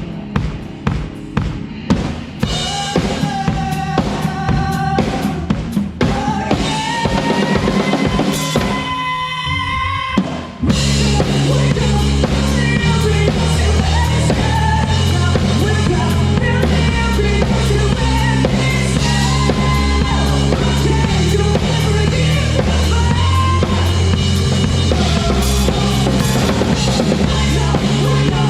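A rock band playing live, with the drum kit up front: kick drum, snare and rimshots over held instrument notes. About ten seconds in, the full band comes in with a heavy bass line and plays on steadily.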